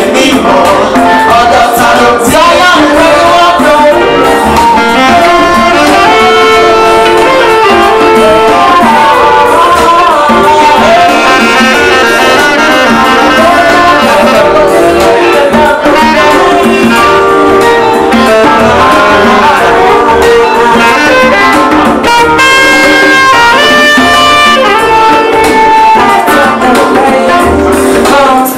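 Live band playing, with a saxophone carrying the melody over keyboard accompaniment.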